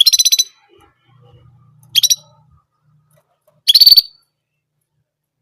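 Orange German canary singing in three short bursts of rapid, high trilled notes: one at the start, a shorter one about two seconds in, and another just before the four-second mark.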